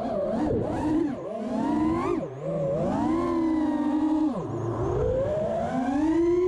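FPV quadcopter's four Hurricane 2207 2500kv brushless motors on 5-inch props whining in hard freestyle flight, the pitch climbing, holding high and dropping sharply over and over as the throttle is punched and chopped.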